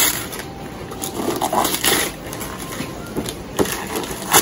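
Gift-wrapping paper being torn and crumpled by hand as a present is unwrapped, in several short rustling bursts.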